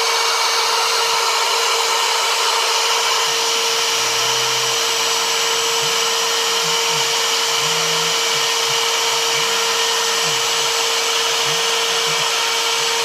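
Router spindle on a homemade CNC machine running steadily at high speed while cutting into wood, with a strong steady whine. From about four seconds in, the lower hum of the stepper motors comes and goes in short stretches, its pitch stepping up and down as the axes move the cut.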